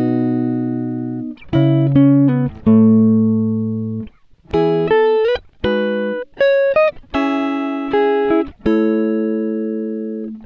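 Background music: pitched notes and chords, each struck and left to ring out and fade, with short pauses between phrases.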